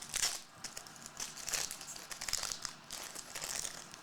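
Trading cards and their packaging being handled at close range, a run of short crinkling rustles.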